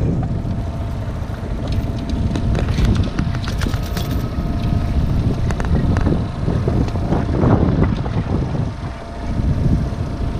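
Wind buffeting the camera microphone as a heavy, rough low rumble, with scattered clicks and rattles as a small pollock is handled and unhooked aboard the inflatable boat. A faint steady hum sits underneath.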